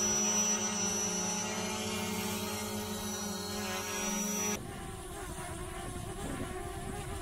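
A large camera drone, apparently the Xiaomi Fimi X8, hovers close by with a steady, many-toned propeller whine. About four and a half seconds in, the sound cuts abruptly to a smaller drone, apparently the DJI Mavic Mini, hovering in strong wind: quieter and noisier, with wind rumbling on the microphone.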